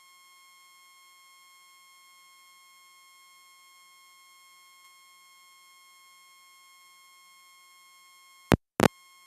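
A steady, faint, high-pitched whine like a buzzer tone: the background noise that spoils the recording. Near the end two loud, sharp clicks come close together, with a moment of dead silence between them.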